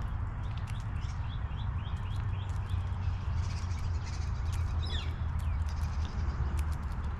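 Wild birds calling around a backyard feeder: a quick run of short chirps about a second in, then a falling call about five seconds in. Scattered sharp ticks and a steady low rumble run under the calls.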